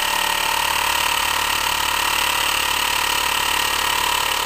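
10cc pressurized rhombic-drive Stirling engine running steadily off load at about 2,200 rpm, an even, fast mechanical running sound with a constant whine.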